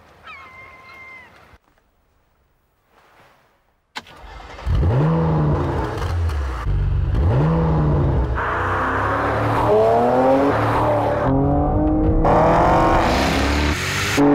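A sharp click, then a Porsche Macan GTS's twin-turbo V6 starts and is blipped twice, each rev rising and falling. It is then revved again and again through its sports exhaust, the pitch sweeping up over and over and growing louder near the end.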